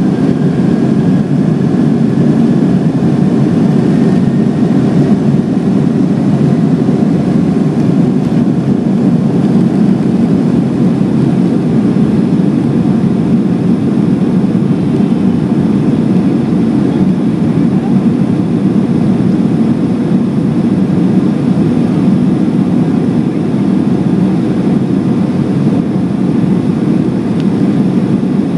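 Boeing 757's twin jet engines at takeoff thrust, heard inside the cabin over the wing: a steady, deep noise through the end of the takeoff roll, liftoff and initial climb. A faint whine rises slightly in the first few seconds.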